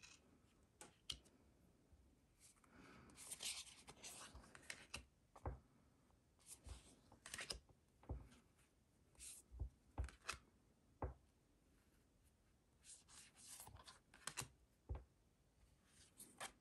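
A deck of thick, slick-finished oracle cards being shuffled through by hand, one card slid off the front and tucked behind the rest at a time: soft card-on-card swishes and light taps about a second or two apart, with a couple of longer rustles.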